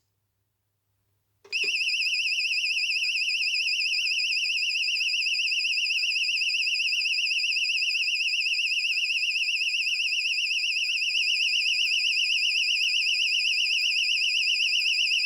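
AE&T T105N high-power fire alarm sounder playing its tone number 5: a loud, high-pitched, rapidly warbling tone that starts about a second and a half in and cuts off suddenly.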